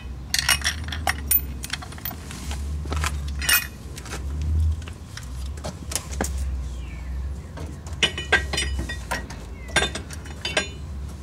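Scattered metal clinks and taps as a steel clutch bolt, spacer and washer are handled and an aluminium primary clutch is fitted onto a UTV engine's tapered crankshaft, with clusters of clicks near the start, about three and a half seconds in, and in the last few seconds. A low steady hum runs underneath.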